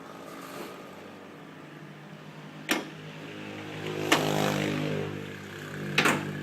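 Isuzu D-Max diesel engine with its EGR blocked off, running steadily with a swell in engine speed about four seconds in. Two sharp clicks are heard, near the three-second mark and again about six seconds in.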